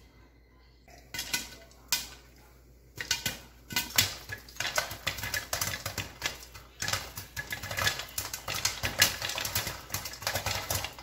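Popcorn kernels popping in hot oil in a lidded pan. A few scattered pops come first, then about three seconds in it builds to rapid, dense popping.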